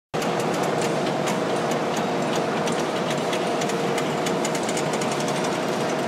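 Cable-making machinery in a factory running steadily: a mechanical drone with a steady hum and rapid, irregular clicking and rattling.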